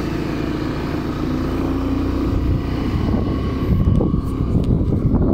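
Motorcycle engine running as the bike rides along, its pitch rising a little about two seconds in as it gathers speed. Wind buffets the microphone through the second half.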